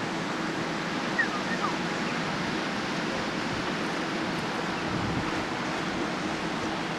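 Steady noise of wind on the microphone and surf, with a faint low hum underneath and a few short high chirps about a second in.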